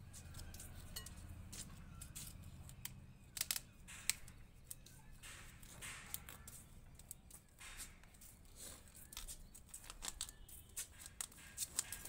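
Hands working the soil in a small bonsai pot: faint scraping and crumbling with scattered small clicks, two sharper ticks about three and a half and four seconds in.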